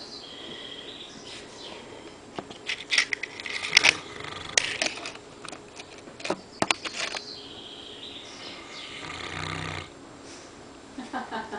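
Newfoundland dog snoring in its sleep, with one long snore at about eight to ten seconds in. In the middle, a few seconds of sharp clicks and short noises.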